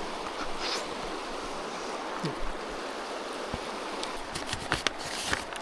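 Mountain creek rushing steadily, with a few light clicks near the end.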